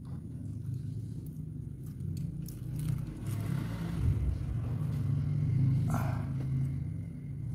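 A cloth rubbing and scraping as it is twisted and wiped inside a Nissan X-Trail T31's spark plug tube, with a few small clicks, clearing oil residue from the leaking plug tube seal. Under it runs a steady low rumble.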